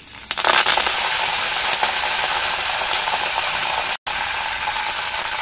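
Curry leaves and whole spices sizzling in hot oil in an earthenware pot, the sizzle starting loud as the leaves hit the oil about a third of a second in and running steadily. It cuts out for an instant about four seconds in.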